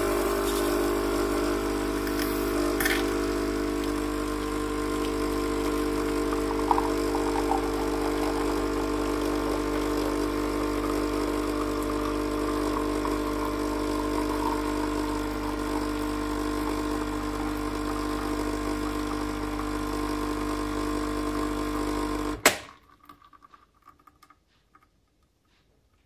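Krups Dolce Gusto Mini Me capsule coffee machine's pump running with a steady hum while it forces hot water through a lungo capsule. About 22 seconds in it cuts off suddenly with a click, followed by a few faint drips of coffee into the glass.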